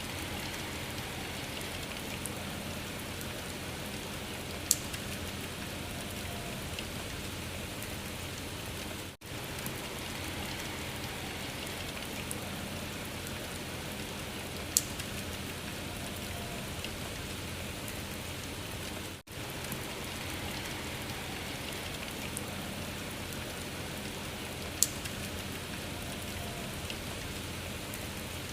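Steady rain-like patter and hiss, a loop of about ten seconds that repeats, with a brief drop-out at each seam and one sharp click in each pass.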